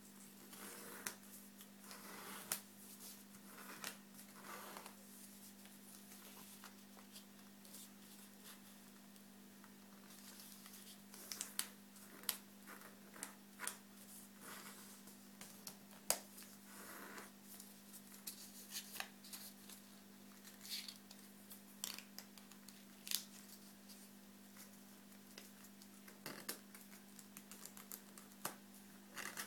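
Square sheet of origami paper being folded and creased by hand: scattered soft crackles and rubs of paper, over a faint steady low hum.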